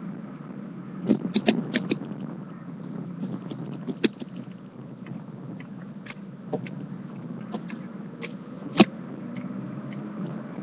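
Steady road and engine noise inside a moving car's cabin, with a quick run of clicks and knocks about a second in, scattered clicks after, and one sharp knock near the nine-second mark, the loudest sound here.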